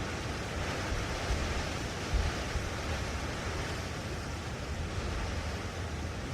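Blustery wind on a hilltop: a steady rushing hiss with a low, uneven rumble of gusts buffeting the microphone, and a brief stronger gust about two seconds in.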